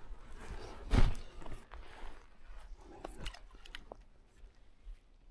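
Crunching and clicking handling noise from a spinning rod and reel being worked, with one loud thump about a second in and a few sharp clicks later on.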